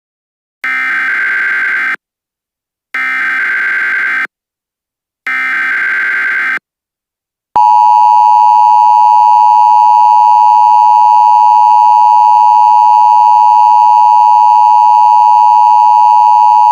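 Emergency Alert System tones: three short data bursts of the SAME header, each about a second and a half, followed about seven and a half seconds in by the loud, steady two-tone attention signal, which holds.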